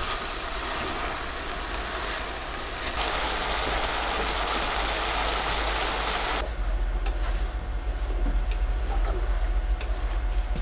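Sliced lotus root sizzling as it is stir-fried in an aluminium pot and stirred with chopsticks. About six seconds in the hiss drops away abruptly, leaving a low steady rumble with a few light clicks.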